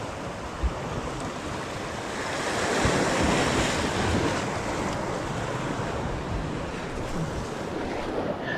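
Sea waves washing and breaking over shoreline rocks, a steady surge of surf that swells loudest about three seconds in.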